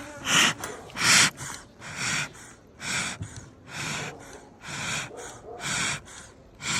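Rhythmic whooshing puffs of air, about one a second, each a short hiss with no pitch.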